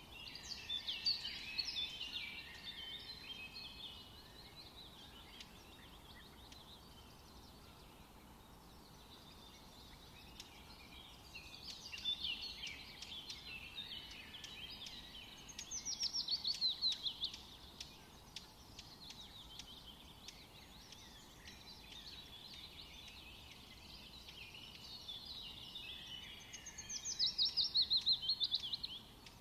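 Small birds chirping and singing in three bouts several seconds apart. The second and third bouts end in a fast, rattling run of short descending notes, the loudest sound here.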